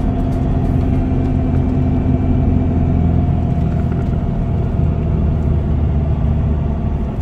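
Pickup truck driving, heard from inside the cab: a steady low drone of engine and tyre noise with a faint steady hum.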